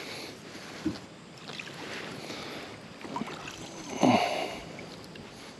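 Wind on the microphone and water around a small fishing boat, with a light knock about a second in and a louder thump about four seconds in.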